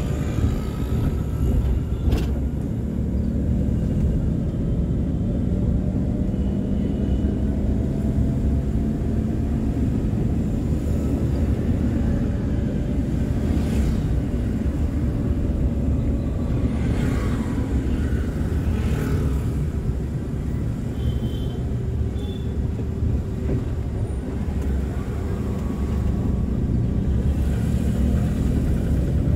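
A car driving on a city road: steady engine and road rumble, the engine note drifting slowly up and down with speed.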